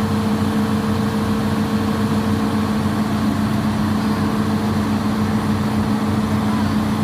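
Hitachi excavator's diesel engine running steadily at a constant speed, an even, unchanging hum.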